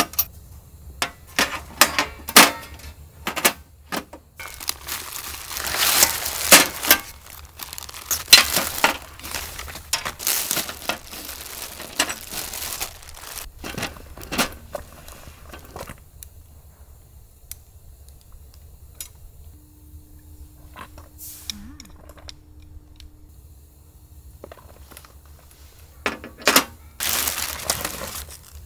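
Thin metal camping-table parts clinking and clattering, then plastic packaging crinkling and rustling as wrapped poles are unpacked. The crinkling dies down for several seconds before another spell of it near the end.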